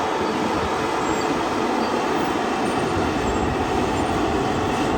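Caterpillar bulldozer running steadily as it works dirt, a constant engine and track noise with a steady tone through it.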